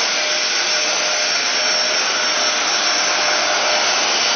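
Bagless vacuum cleaner running steadily: an even rush of air with a faint high steady whine from the motor.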